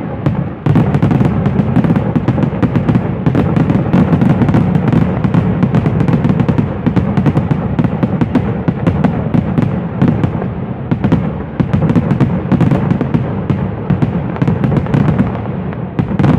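Dense, continuous barrage of aerial fireworks: rapid overlapping bangs and crackling over a constant low booming, with hardly a pause.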